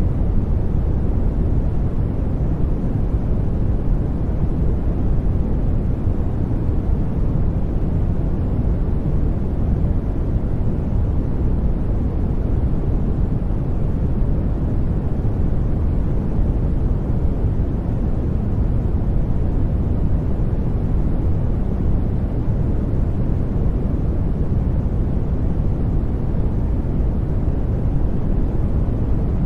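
Steady masking noise for sleep: a deep, even rush with most of its weight low down, little hiss up high, and no sudden spikes.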